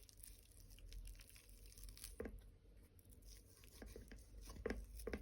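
Faint, scattered light clicks and crinkling, with a few soft knocks near the end, over a low hum.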